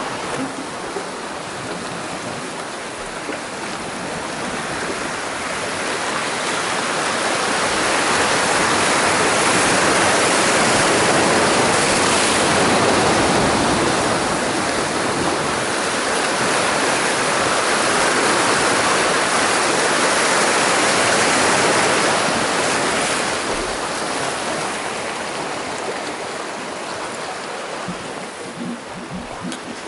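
Sea surf breaking and washing over shoreline rocks close by: a steady rush of white water that swells louder for several seconds in the middle and then ebbs.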